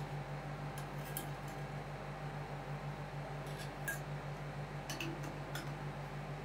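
A steady low hum pulsing evenly from the ice cream roll cold-plate machine, with a few light clicks and taps of metal spatulas on the steel plate, about six of them spread through.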